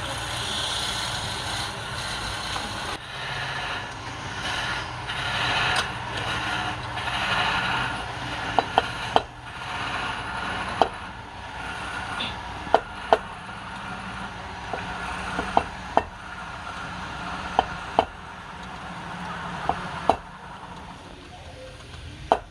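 Wood lathe running while a turning tool cuts the spinning wood: a steady motor hum under a rough cutting hiss, with sharp knocks repeating irregularly from about eight seconds in. The cutting dies down near the end.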